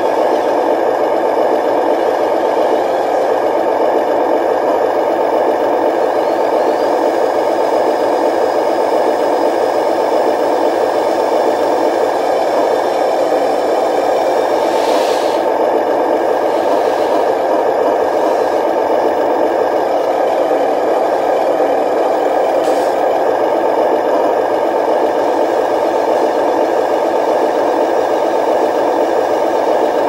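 Remote-control 12-wheel dump truck's motor and gearing running with a steady whirring rattle. A short clatter about halfway through as the tipper unloads its gravel.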